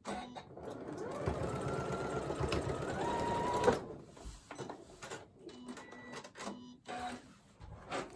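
Janome Skyline S7 computerised sewing machine stitching a fabric tab across the end of a zipper, its motor whine stepping higher about three seconds in, then stopping just under four seconds in. A few light clicks follow.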